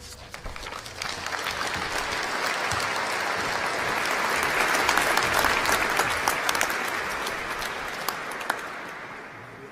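Audience applauding, swelling for about five seconds and then dying away near the end.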